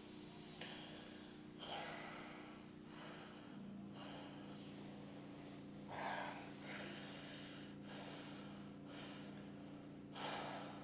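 A person breathing heavily and unevenly, with faint breaths about once a second over a steady low hum.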